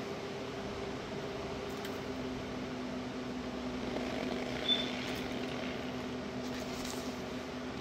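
Steady low machine hum with two held tones, from a running room appliance. Faint soft crunches of packed cornstarch being squeezed and broken by hand come in the later half, with one brief high squeak a little past the middle.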